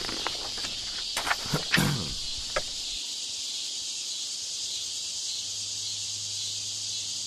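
Added background environmental noise: a steady, high-pitched chirring hiss, with a few brief clicks and short knocks in the first three seconds.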